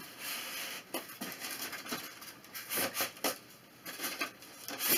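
Cardboard box flaps and styrofoam packing rustling and scraping as a printer is worked loose from its box, with irregular soft knocks.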